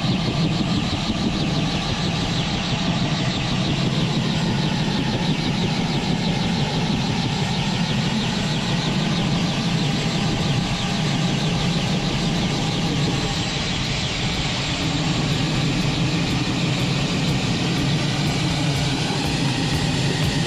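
Bell 206L-4 LongRanger helicopter running on the ground with its turboshaft engine at idle and main rotor turning, a steady loud drone with a fast, even chop.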